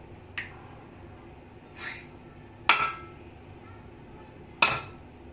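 A hen's egg being knocked against the rim of a metal pot to crack it: a couple of light taps, then two sharp knocks about two seconds apart.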